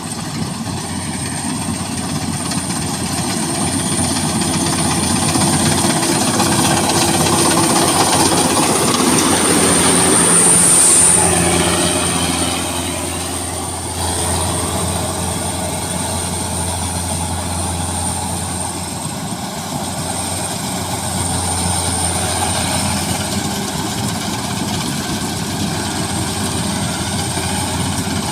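Rice combine harvesters running in the field, engines and threshing machinery going steadily. The noise grows louder to a peak about ten seconds in, as if a machine passes close, then eases and runs on steadily.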